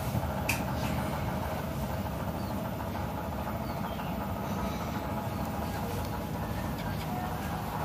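Mother cat purring steadily while nursing her newborn kittens, a continuous low rumble. A few faint, short, high squeaks and a small click sound over it.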